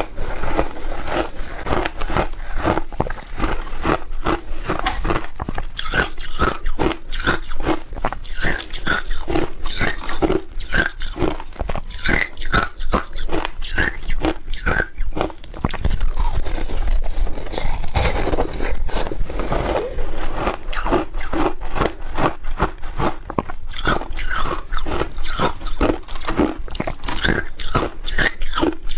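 A person biting and chewing a syrup-soaked block of shaved ice, with dense crunching at several crunches a second.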